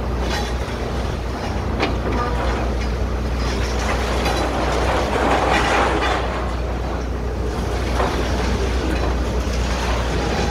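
Demolition excavators working a rubble pile: a steady diesel-engine rumble with scattered knocks and crunches of breaking debris.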